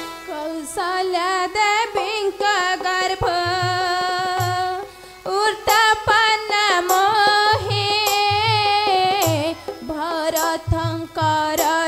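Live stage music in the Ramlila style: a single ornamented melody line with gliding, wavering notes, over deep hand-drum beats and a few sharp cymbal strikes. The melody pauses briefly about five seconds in.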